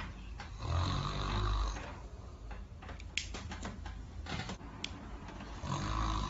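A sleeping person snoring: one long snore about a second in and another starting near the end, with two short clicks in between.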